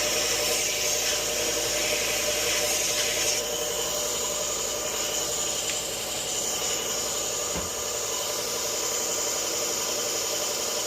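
Powered sharpening grinder running steadily as the steel blade of a Leatherman multi-tool is ground against the abrasive, reshaping its damaged tip.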